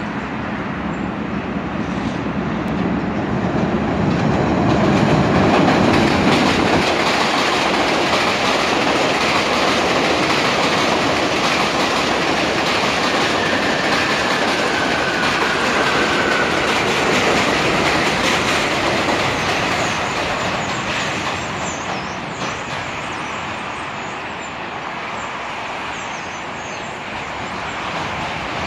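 R62A subway train running across a steel elevated structure overhead: a loud, steady rumble and clatter that builds over the first few seconds and slowly eases toward the end. A thin whine sliding slightly down in pitch comes through briefly about halfway through.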